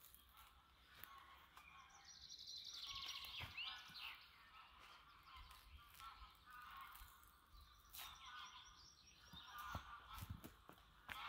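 Faint birdsong with trilling, chattering calls, loudest a few seconds in. A few soft clicks and scrapes come from a knife scoring and peeling birch bark off the trunk.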